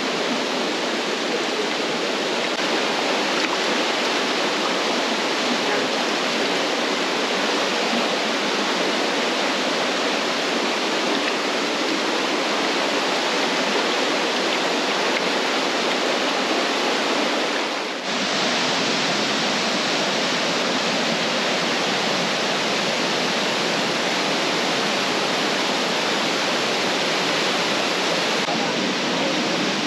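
Steady rush of a swollen, muddy river in flood pouring over rapids. About eighteen seconds in the sound drops briefly, then carries on with a slightly different tone.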